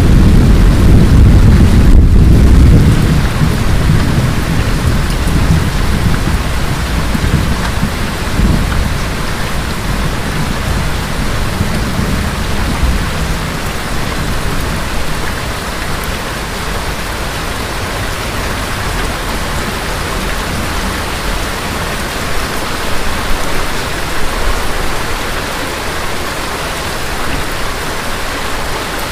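Thunder rumbling loudly in the first few seconds and dying away over the next several, over steady rain that continues alone afterwards.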